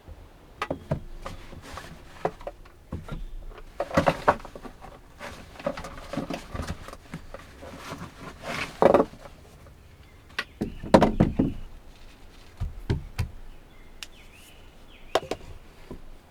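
A string of irregular knocks, clicks and short scrapes from objects being handled, with louder clusters about four, nine and eleven seconds in.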